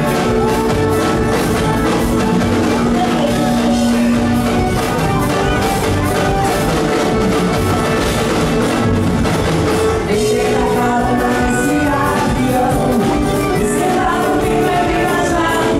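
Live sertanejo band music with sung vocals over accordion and acoustic guitar, loud and steady, with long held sung notes.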